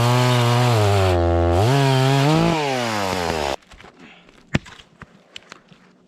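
Two-stroke chainsaw running at high revs, its pitch wavering as it cuts, dipping and rising once, then cutting off abruptly about three and a half seconds in. A few sharp knocks follow.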